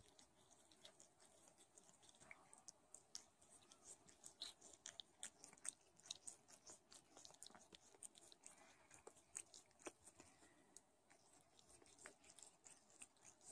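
A Don Sphynx mother cat licking her newborn kittens: faint, irregular wet clicks and smacks of tongue and mouth, several a second.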